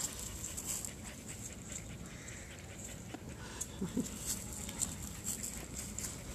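A dog panting in quick, even breaths after running and play, a sign that it is tired and warm.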